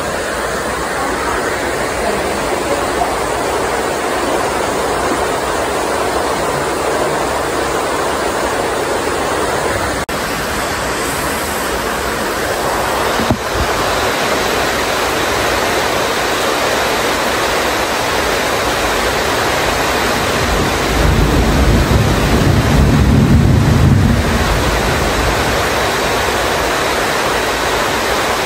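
Heavy tropical rain pouring steadily, a dense even hiss. A low rumble of thunder swells in from about 21 seconds in and fades again by 24 seconds.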